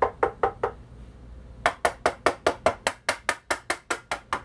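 Quick, even tapping by hand on the plastic tone arm back cover of a Sony PS-X555ES turntable, about five taps a second, with the counterweight cover door removed: a tap test of how the cover rattles or rings. The tapping stops a little after half a second in and starts again on the second turntable about a second later.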